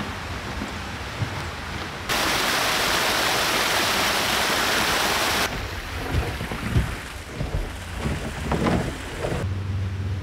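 Outdoor ambience on a snowy trail, changing abruptly between shots: a loud, even rushing noise for about three seconds from about two seconds in, then quieter background with irregular soft knocks and rustles.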